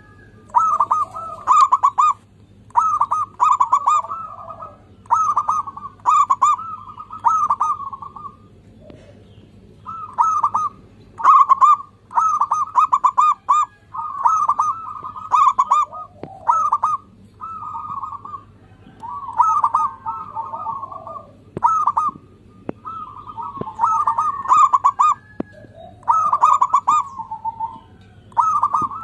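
Zebra dove (perkutut) singing: rhythmic, staccato cooing phrases repeated one after another, with short pauses of a second or so between them.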